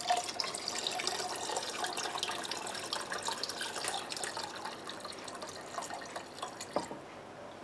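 Ginger-simmering liquid poured in a steady stream from a glass bowl into a glass measuring cup of brandy, splashing and trickling into the liquid and tapering off near the end. A single light knock comes shortly before the end.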